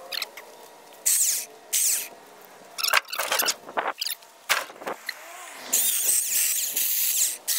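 Homelite 14-inch electric chainsaw motor running with a high whine in several short bursts, then for about two seconds near the end as it cuts into a dry limb.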